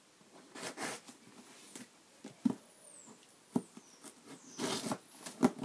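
Big scissors working at a taped cardboard box, which won't open easily: irregular sharp clicks and knocks, short bursts of scraping and rustling, and a few faint high squeaks about halfway through.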